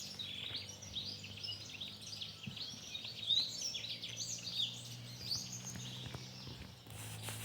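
Many birds chirping and singing at once in a busy morning chorus of quick, high chirps, over a faint low steady hum.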